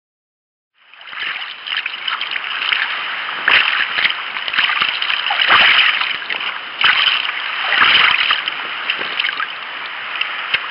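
Kayak paddle strokes splashing in the sea, with louder splashes every one to two seconds over a steady rush of water along the hull; the sound cuts in about a second in.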